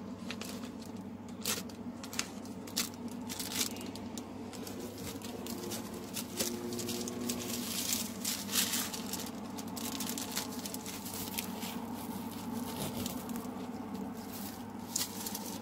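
Clear plastic packaging crinkling and rustling in irregular bursts as it is handled, with a low steady hum underneath.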